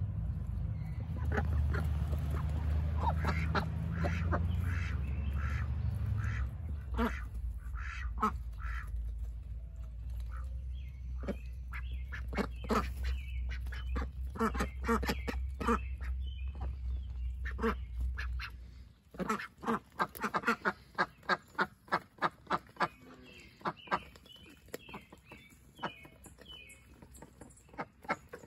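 A flock of domestic ducks quacking in many short, rapid calls while they feed. A low rumble runs underneath until it stops suddenly about eighteen seconds in, after which the quacks stand out more sharply.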